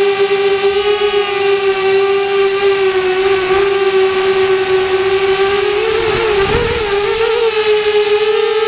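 Mini quadcopter's motors and propellers whining at a steady pitch, heard from the airframe itself. The pitch wavers up and down about two-thirds of the way through, then settles a little higher.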